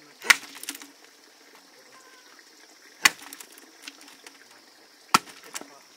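Three sharp knocks about two and a half seconds apart, each followed by a few lighter clicks.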